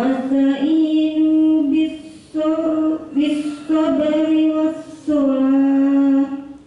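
A woman reciting the Quran in a melodic chant into a handheld microphone. Three phrases of long, drawn-out vowels, with short breaks between them.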